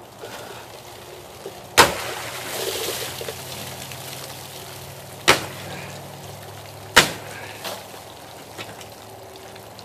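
A heavy chopper knife strikes through a water-filled plastic jug with a sharp crack about two seconds in, followed by water splashing and pouring out. Two more sharp knocks follow a few seconds later.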